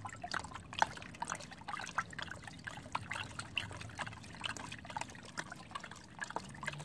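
Gasoline sloshing and trickling in a plastic tub as it is rocked by hand, washing through a GY6 scooter cylinder head soaking in it, with many small irregular splashes and clicks.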